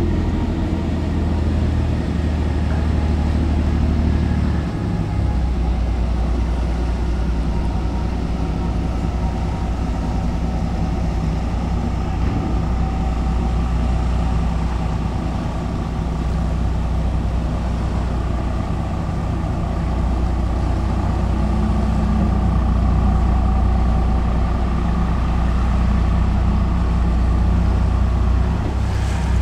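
Diesel engines of passing harbour ferries, a steady low drone that steps slightly lower in pitch about five seconds in.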